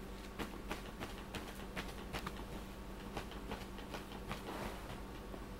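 Sheets of paper rustling and scraping in short, irregular bursts as a cat paws and pushes at them.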